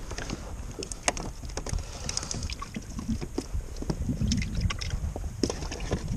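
Irregular clicks and knocks on a fishing kayak as a string of small fish, taken for mackerel, and the multi-hook feather rig are handled, over a low background of wind and water.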